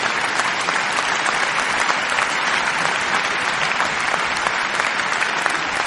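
Audience applauding: a large crowd clapping steadily and densely.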